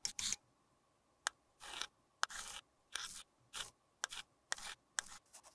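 Thin metal spatula scraping and tapping against a shallow metal tin while spreading loose crushed makeup powder. About a dozen short scrapes and sharp ticks, roughly two a second.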